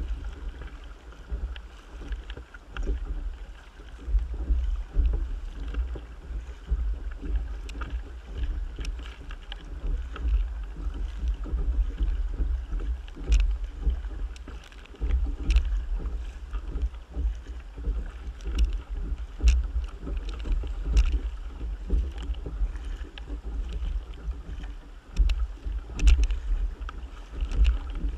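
A kayak being paddled through choppy sea: the paddle blades splash in and out every second or two, and water slaps and washes against the hull. Wind buffets the microphone throughout.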